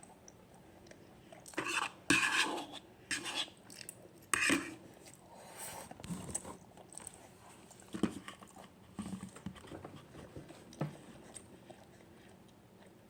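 Eating utensil clinking and scraping against a dish of instant noodles in scattered short bursts, the loudest between about two and five seconds in.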